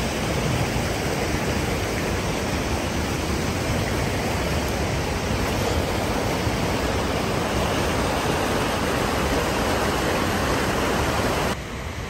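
Rushing water of a mountain creek pouring over rocks and small falls, a steady, loud wash of noise. It drops suddenly to a quieter level near the end.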